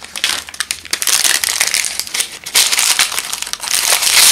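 Crinkly plastic accessory packet being crumpled and opened by hand: a dense crackling, loudest near the end.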